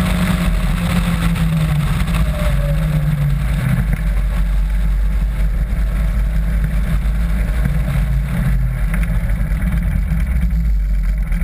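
Caterham Seven's engine running as the car drives on track, heard from the open cockpit over a steady low rumble of wind noise. The engine note drops about two to three seconds in, then runs lower and steady.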